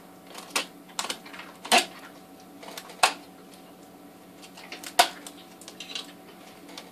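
Irregular sharp plastic clicks and scrapes as a snap-off craft knife works at a plastic tub, the loudest about 3 and 5 seconds in.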